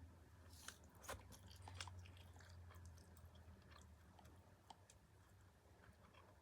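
A person chewing food close to the microphone: a run of sharp, crisp crunches and mouth clicks starting about half a second in, thickest in the first couple of seconds and thinning out after.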